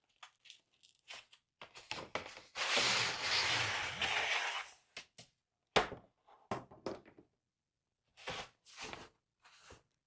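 Packaging being handled and pulled away while unboxing the teleprompter's front glass: scattered light knocks and clicks, with one loud tearing, rustling stretch about two and a half seconds in that lasts around two seconds.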